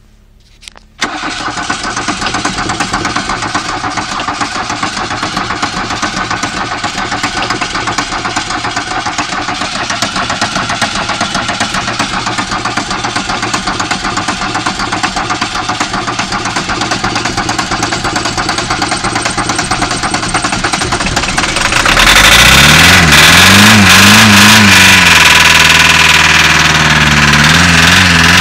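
VW Caddy diesel engine being cranked on the starter for about twenty seconds in a hard cold start. It then catches and runs louder, revved up and down a few times. The owner says it is running on three cylinders, one not firing, perhaps because of a valve.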